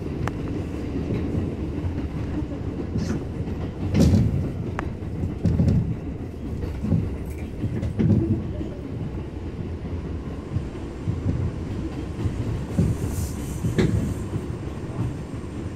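An R179 subway car running along elevated track, heard from inside: a steady low rumble broken by irregular clacks of the wheels over rail joints. The loudest clacks come about four and fourteen seconds in.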